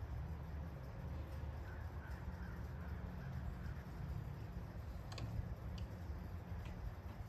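Faint bird calls, a short run of them about two seconds in, over a low steady rumble, with a few light clicks near the end.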